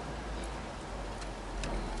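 A few faint, light clicks of small metal deadbolt parts being handled, the clearest about one and a half seconds in, over a steady background hiss.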